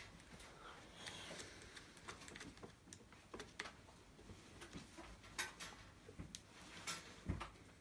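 Faint, irregular small clicks and taps of hand work fitting a washer and lock nut on the replacement potentiometer in a PowaKaddy FW3 golf trolley handle.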